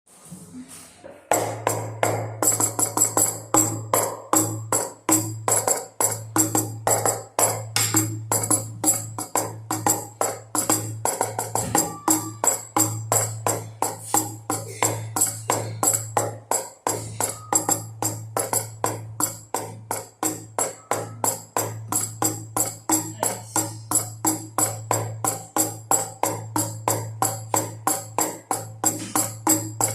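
Baby rattle shaken in a fast, even rhythm together with two drums, a steady run of sharp jingly strokes that starts about a second in.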